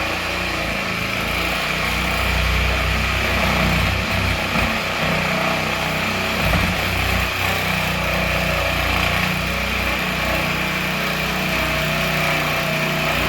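Electric power tool motor running steadily with a constant high whine, without pause.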